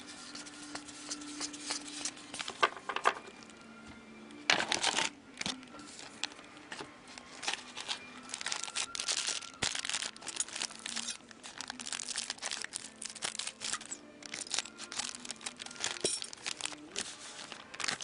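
Hockey-card pack wrappers being torn open and crinkled, with the cards inside handled and slid between the fingers: repeated bursts of crinkling and tearing, loudest about four and a half seconds in and busiest in the second half.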